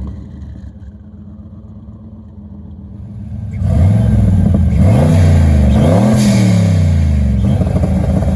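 Turbocharged 5.0 V8 of a 1992 Fox-body Mustang idling, then revved hard about three and a half seconds in and held at high revs with a rough crackle, as the MSD 6AL-2 two-step rev limiter caps the rpm.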